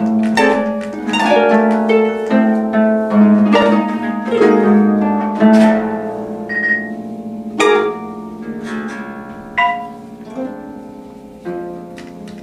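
Two pedal harps plucking notes and chords in free improvisation, the notes ringing on and overlapping above a sustained low note. The playing grows sparser and quieter in the second half, with a few single sharp struck notes.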